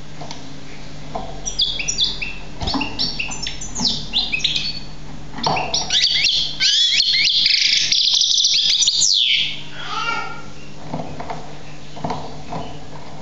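Young Algerian goldfinch singing: a run of quick, sharp chirps and trills that builds about six seconds in into a loud, dense twittering passage, which breaks off suddenly a little after nine seconds and is followed by a few scattered notes. A steady low hum runs underneath.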